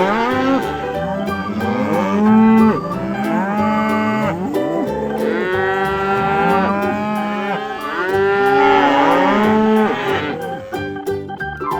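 Several cows mooing over and over, their long calls overlapping, over light background music.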